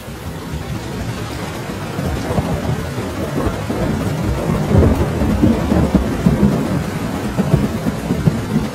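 Steady rain with a long roll of thunder, a deep rumble that swells through the first half and stays loud with crackling peaks.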